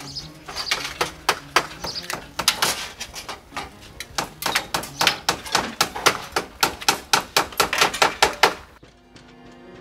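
Fast series of hammer taps on metal while a gutter is fitted at the eaves, about three a second at first and quickening to about six a second, stopping abruptly shortly before the end. Music comes in after the taps.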